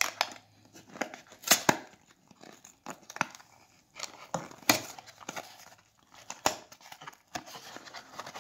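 A small cardboard product box being torn and pried open by hand: an irregular run of short tearing scrapes, snaps and rustles of cardboard and packaging.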